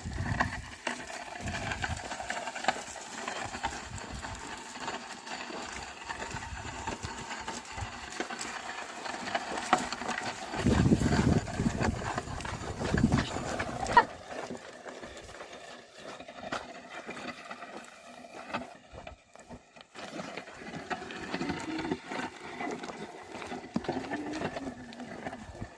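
Outdoor farm sounds of oxen working, with scattered thuds and movement; the sound changes abruptly about halfway through and again later.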